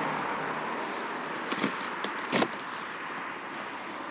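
Cardboard packaging rustling and tearing as it is pulled off a stainless steel exhaust silencer. Two sharp knocks come about one and a half and two and a half seconds in as the silencer is handled.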